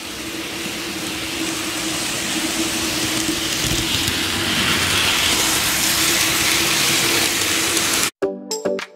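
N gauge model freight train of tank wagons running round the layout: a steady hiss of wheels on the rails with a low even hum, slowly growing louder. It cuts off abruptly near the end, and electronic music begins.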